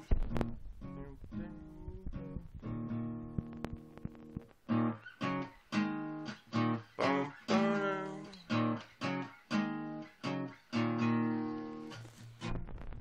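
Guitar played by hand: quieter strummed chords at first, then from about five seconds in a run of separately picked notes, each left to ring, ending on a longer ringing chord.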